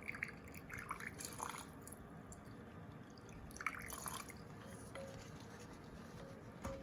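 Gasoline dripping from a moped's fuel tank being drained into a container: a handful of small plops, several close together at first and a pair about four seconds in. The gas was put in to rinse rust out of the tank.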